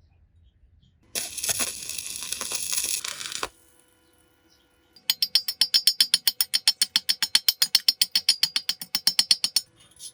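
A harsh burst of crackling noise lasting about two seconds, then, after a short pause, rapid metallic tapping of about ten strikes a second with a ringing tone, stopping near the end.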